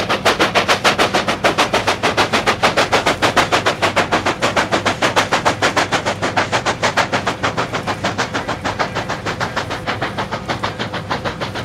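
Train running, with a fast, even clatter of beats over a steady low rumble.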